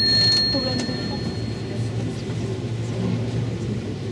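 San Francisco cable car running with a steady low drone, as the ring of its bell dies away in the first two seconds.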